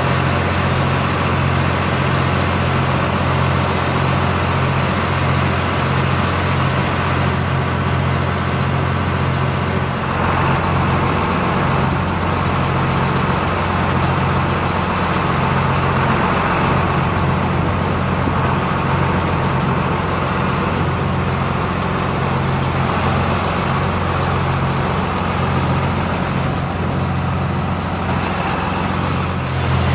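Heavy diesel farm machinery running steadily at a constant speed, a low even engine hum with machine noise over it, while a cotton picker's raised basket dumps seed cotton into a module builder.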